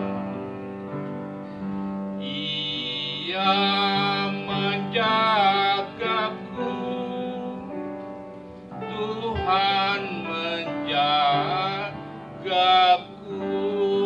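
A man singing the closing phrases of an Indonesian hymn into a microphone, holding long notes with vibrato, over a sustained instrumental accompaniment. Two sung phrases, about three seconds in and again about nine seconds in, with the accompaniment alone between them.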